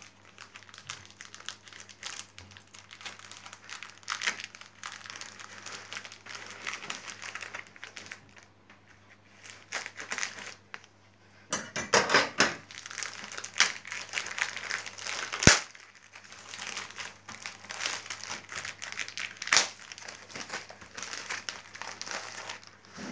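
Clear plastic wrapping crinkling and tearing as it is pulled by hand off a sticker-album starter pack, in irregular crackly handling noise, with one sharp click about two-thirds of the way through.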